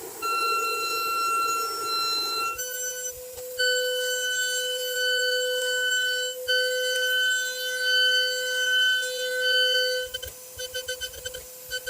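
High-speed CNC milling spindle whining at a steady pitch, dropping to a lower steady pitch about two and a half seconds in. Near the end the whine breaks into a rapid stutter.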